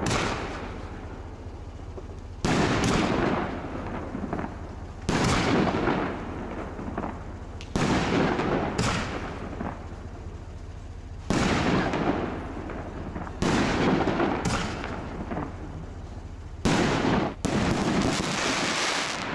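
Aerial fireworks bursting overhead: about nine loud bangs, one to three seconds apart, each trailing off in a fading crackle.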